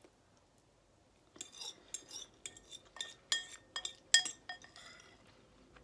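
Metal fork clinking and scraping against a ceramic bowl while scooping macaroni and cheese: a quick, uneven run of sharp clinks that starts about a second and a half in, the loudest one near the end.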